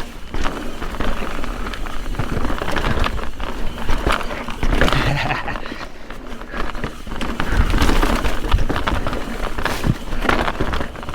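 Mountain bike riding down a rough dirt and rock trail: tyres crunching and rolling over the ground, with frequent clicks, knocks and rattles from the bike as it hits bumps.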